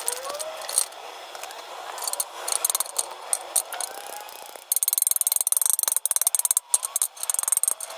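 Stick welder's arc crackling on a steel frame. Short bursts of crackle come first, then a steady, dense crackle from about five seconds in until near the end as a bead is run.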